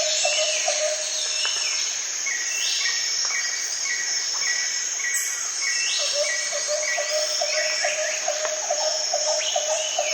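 Jungle ambience sound effect: dense overlapping bird calls over a steady high insect drone. A low call repeats rapidly at the start and again from about six seconds in, and a run of evenly spaced chirps falls between them.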